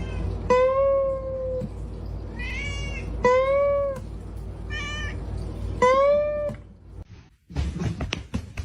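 A domestic cat meowing about five times, with drawn-out calls that rise and fall in pitch, over a steady low background hum.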